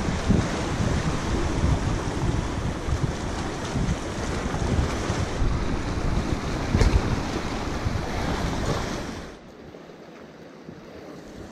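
Wind buffeting the microphone over sea surf washing against rocks, with a short knock about seven seconds in. About nine seconds in the buffeting drops away, leaving a quieter hiss of wind and water.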